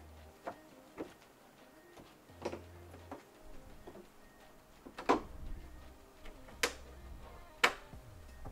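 Scattered light clicks and knocks, with three sharper, louder knocks in the second half.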